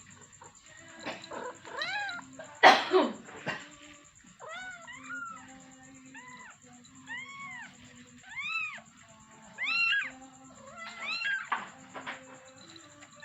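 Kitten meowing repeatedly for its mother: about a dozen high, thin calls, each rising then falling in pitch, roughly a second apart, with one much louder, harsher cry about three seconds in.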